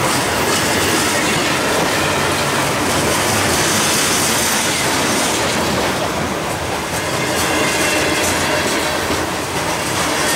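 Freight train's covered hopper cars rolling past close up: steady, loud rolling noise of steel wheels on the rails, with a brighter hiss from about three to five seconds in.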